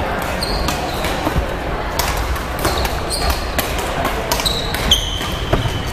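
Badminton rally: sharp racket hits on the shuttlecock and short high squeaks of court shoes on the hall floor, over the steady noise of play on other courts.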